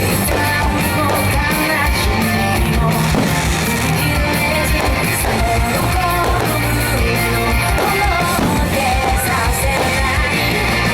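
Japanese pop-rock song with guitar and bass over a steady beat, in a passage where no lyrics are made out.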